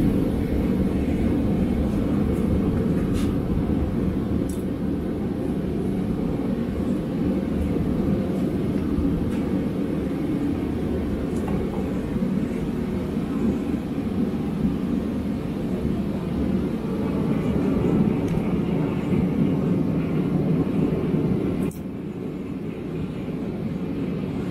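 Homemade propane forge running: the burner gives a steady low rush of flame. It drops a little in level near the end.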